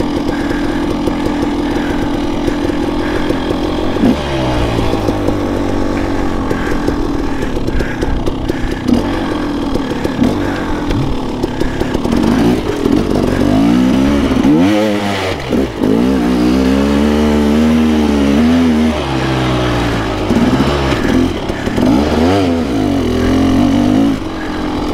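2016 KTM 300 XC-W's two-stroke single-cylinder engine holding a steady speed for about four seconds, then revving up and down over and over as the dirt bike is ridden, with the sharpest rises and falls in the second half.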